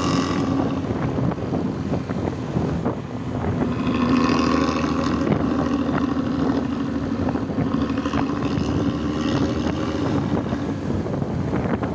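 Intercity bus engine running with a 'ngorok' (snoring) exhaust: a continuous, steady rumbling note that swells a little about four seconds in.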